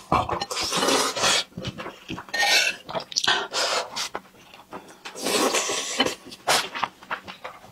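Close-miked eating: slurping thick noodles in chili sauce, then wet chewing and sharp breaths in irregular bursts.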